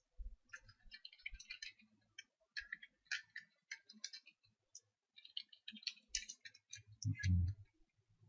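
Computer keyboard being typed on: quick runs of key clicks with short pauses between them. A brief low sound comes near the end.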